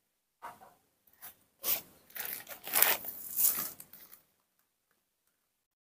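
A run of short rustling, scraping noises, several in quick succession over about four seconds, then stopping.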